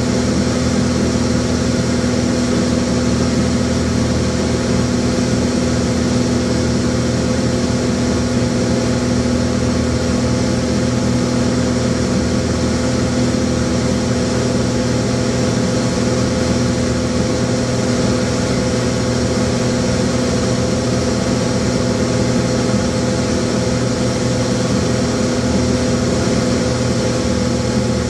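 Light aircraft's engine and propeller droning steadily in flight, heard from inside the cabin. The pitch holds even throughout.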